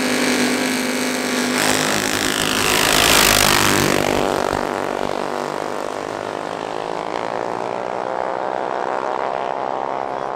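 Racing mini bikes launching in a drag race: engines revving at the line, a loud rush as they pass close about two to four seconds in, then the engine notes fading away down the street.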